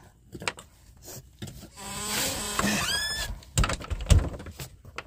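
A door creaking on its hinges for about a second, ending in a short rising squeak, followed by a few knocks and a loud thump.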